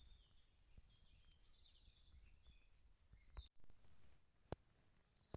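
Near silence: faint birds chirping in the distance, with one sharp click about four and a half seconds in.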